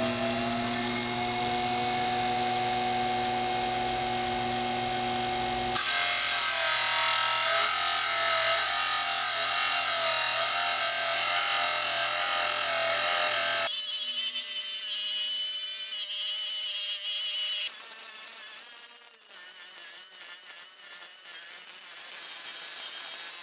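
Variable-speed DC bench grinder running steadily with a whine, its diamond cut-off wheel spinning. About six seconds in the wheel bites into a 3/4 inch carbide end mill with a sudden loud, high grinding hiss lasting about eight seconds. The grinding then goes on more quietly.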